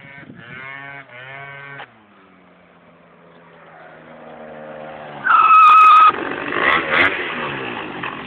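Aprilia SR scooter engine revving, dropping in pitch as the throttle eases off, then climbing again as the scooter comes closer. About five seconds in, a loud steady high-pitched squeal lasts under a second and is the loudest sound, followed by more revving.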